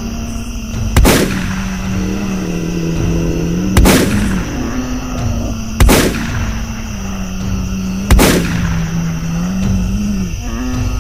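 Four gunshots, two to three seconds apart, each with a ringing tail, over a continuous low tone that wavers slightly in pitch.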